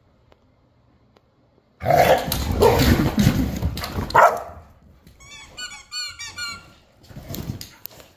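Two pit bull-type dogs play-fighting: a loud burst of growls, barks and scuffling about two seconds in, then a quick run of high squeaks, and another short scuffle near the end.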